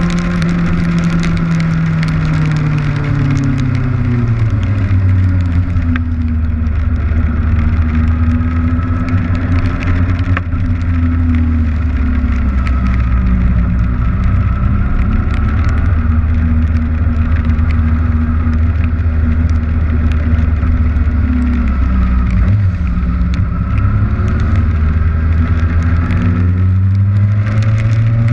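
Kawasaki Ninja motorcycle engine under way, its note dropping a few seconds in, holding steady, then dipping again and climbing near the end, over heavy wind and rain noise on the camera.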